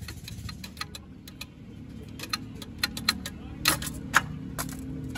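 Fiat 480 tractor differential turning in its open housing: irregular metallic clicks and clinks of the gears and parts over a low steady hum, the two loudest clinks about four seconds in.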